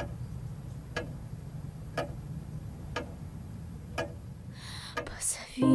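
A clock ticking steadily, one tick a second, over a low steady hum, with a soft hiss shortly before the end.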